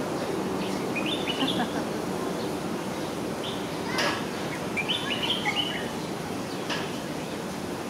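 Two short runs of high, stepped chirping calls, about a second in and again around five seconds, over a steady background murmur. A sharp click comes about four seconds in.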